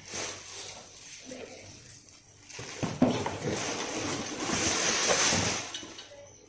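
Packaging rustling and crinkling as a new cooking pot is unwrapped, with a couple of sharp knocks about three seconds in. The rustling grows loudest in the second half, then dies away just before the end.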